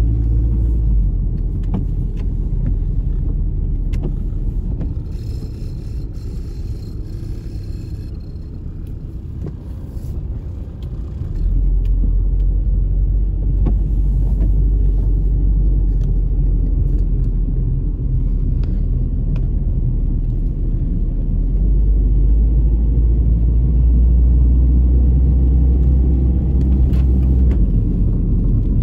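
Steady low rumble of a moving Plymouth Neon heard from inside the cabin: the car's four-cylinder engine with its road and tyre noise. It grows louder a little under halfway through.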